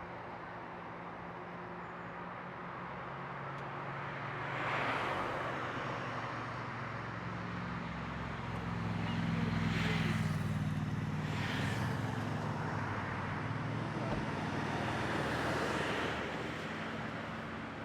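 Motor vehicles passing, heard as a steady engine drone with several swells of tyre and engine noise as vehicles go by, loudest in the middle and toward the end.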